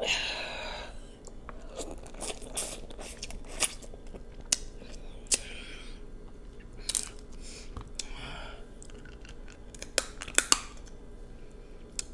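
Crab legs being cracked and pulled apart by hand: scattered sharp clicks and snaps of shell, with a few wet eating sounds of chewing in between.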